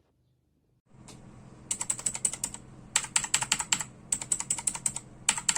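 Typing on a mechanical keyboard: four quick runs of sharp key clicks with short pauses between them. A faint steady hum starts about a second in.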